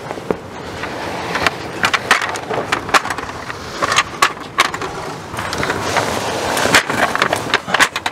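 New patio awning fabric being slid along the camper's awning rail: a steady rasping scrape of the fabric's edge running through the rail channel, with frequent sharp clicks and knocks as it is pushed along.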